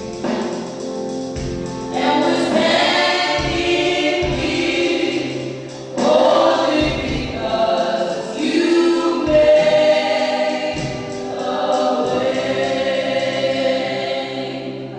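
Church choir singing a gospel song over instrumental backing, with a low beat pulsing beneath the voices.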